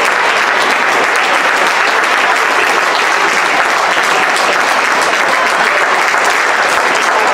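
Crowd applauding steadily, many hand claps blending into a dense patter.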